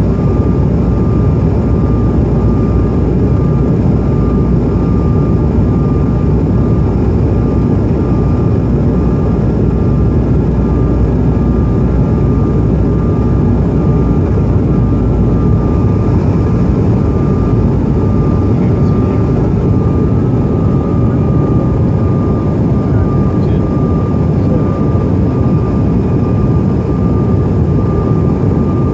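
Cabin noise inside a CRJ-900 regional jet in descent: a steady, loud rumble of airflow and its rear-mounted GE CF34 turbofans, with a thin steady whine just above 1 kHz.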